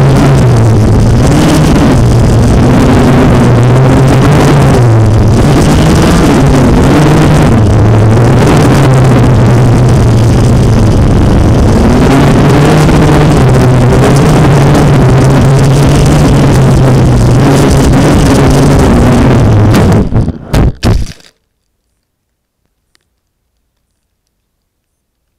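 FPV racing drone's motors and propellers buzzing loudly, the pitch rising and falling with the throttle. About 20 seconds in the sound stutters and cuts out, leaving silence.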